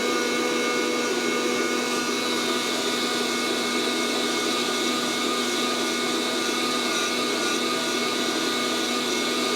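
Fresh Roast SR 800 hot-air coffee roaster running steadily, its fan blowing hot air through the beans with an even whirring hum. It is about six minutes into the roast, before first crack.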